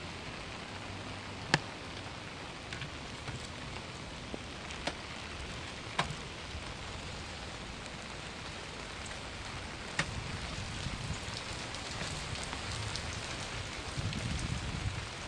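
Steady rain falling on a wet street, an even hiss, with a few sharp ticks scattered through it. A low rumble comes in near the end.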